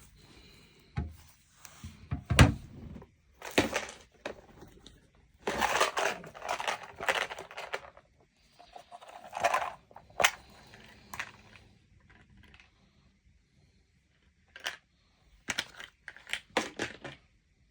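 Rummaging for tattoo needle cartridges: scattered knocks and clicks of small hard items being picked up and set down, with bursts of rustling and crinkling, a cluster of loud rustling about six to eight seconds in and a run of quick clicks near the end.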